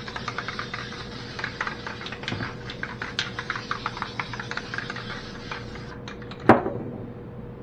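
Aerosol spray can of black Krylon paint spraying in a steady hiss with crackly ticks through it, cutting off suddenly about six seconds in. A single loud thump follows shortly after.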